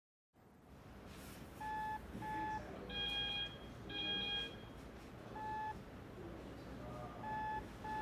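Short electronic beeps from an ECG machine at irregular intervals over a low room hum. Most beeps are at one mid pitch, with two higher, fuller beeps about three and four seconds in.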